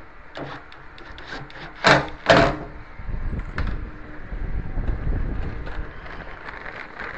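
Handling noises from work on a front-loading washing machine: a few light clicks, then two loud short scrapes close together about two seconds in, followed by a low rumbling.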